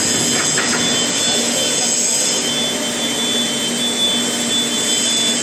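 Steady mechanical hiss with a low hum and a thin high tone running through it, unchanging throughout.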